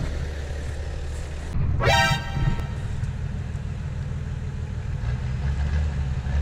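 Off-road 4x4 engine running at low revs, a steady low rumble. About two seconds in, a short pitched tone sweeps quickly up and holds briefly.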